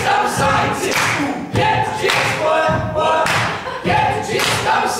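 A group of voices chanting together in a repeated rhythm, phrase after phrase, with a thump at the start of most phrases.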